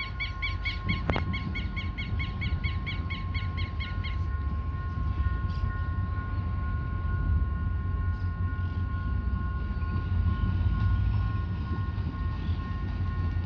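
Low, steady rumble of a distant EMD GT22CW-3 diesel-electric locomotive approaching with its train. A bird chirps rapidly, about four chirps a second, over the first four seconds.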